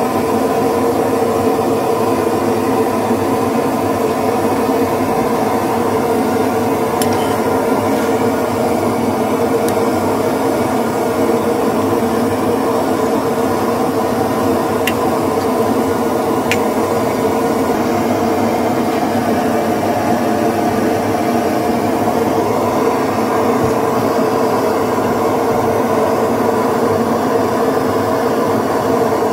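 A loud, steady drone that holds even throughout, with a few faint clicks in the middle.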